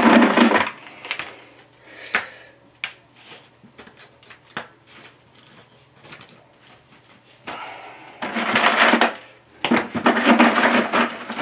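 Broken chunks of old concrete knocking and clattering as they are dropped and packed into a trench hole in a concrete floor: scattered sharp knocks, then two longer spells of rough scraping and clatter from about the middle on. The chunks go in to stabilize the fill under the new slab patch.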